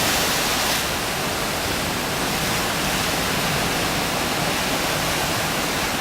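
Heavy typhoon swell washing and breaking over a rocky shore and tide pool, making a continuous rushing surf noise that eases slightly about a second in.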